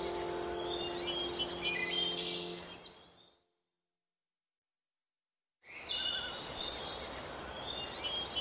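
Recorded birdsong, many short chirps over a steady hiss, with low held notes of soft background music. It all fades out about three seconds in and goes fully silent for about two seconds, then the birdsong and hiss start again without the music.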